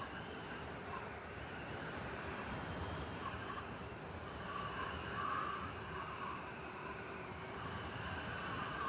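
Steady blizzard wind over a city, a continuous even rush with soft swells, over a constant low hum of distant traffic.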